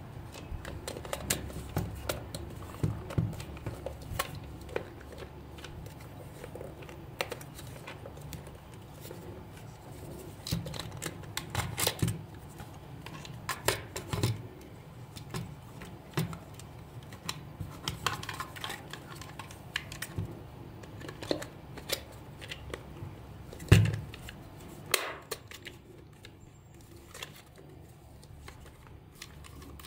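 Hard plastic toy shell parts being handled and pressed together: scattered clicks, knocks and rubbing, with the loudest knock a little past three-quarters through.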